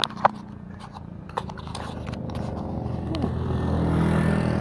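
Clicks and scraping of a handheld action camera being turned around, then a motorcycle engine growing louder as it passes close by.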